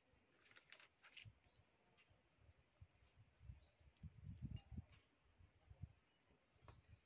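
Near silence: a faint high chirp repeating evenly about twice a second, with a few soft low knocks as small metal valve parts are handled, the clearest about four to five seconds in.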